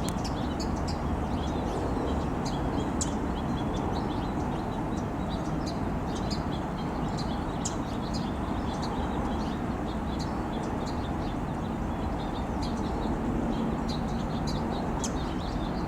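Many short, high chirps from a flock of house finches, scattered all through, over a steady background noise.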